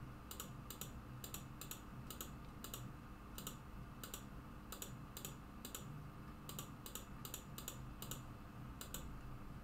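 Faint computer mouse clicks, irregular at roughly two a second, as a password is entered key by key on an on-screen keyboard.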